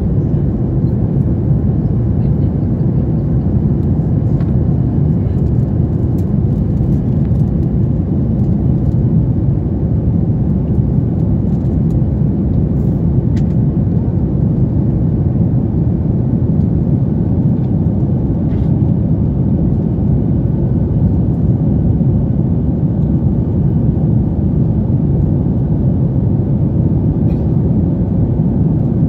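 Steady cabin noise of a Boeing 737 MAX 8 climbing after takeoff, heard from a window seat. Its CFM LEAP-1B engines and the airflow over the fuselage make an even, deep rumble that holds level throughout.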